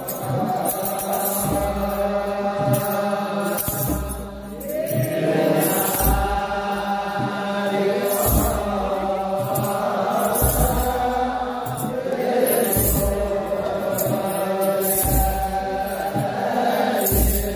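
Ethiopian Orthodox liturgical chant (zema): a group of men's voices chanting together over a large kebero drum struck in a slow beat, with a metal jingle sounding in time with it.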